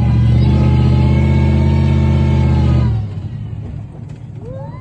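Ride monster truck's engine running loud and steady under power. About three seconds in it drops off abruptly to a much lower level.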